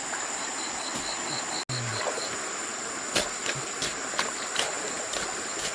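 Insects chirring in a steady high-pitched drone, with a run of quick, evenly spaced chirps in the first two seconds. Several sharp clicks or taps sound in the second half.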